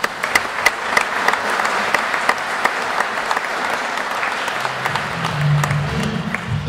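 Audience applauding, a dense crowd of clapping hands, with a low hum coming in under the clapping about two-thirds of the way through.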